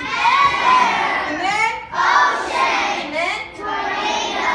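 A crowd of children's voices calling out loudly at once, many high voices overlapping.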